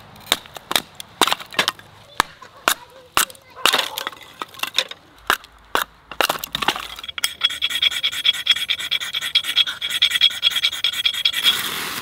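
Knife splitting thin strips of kindling off a stick of firewood: sharp cracks and taps about two a second. From about halfway a continuous rasping scrape takes over. It grows louder near the end as a ferro rod is struck, throwing sparks onto a paper towel.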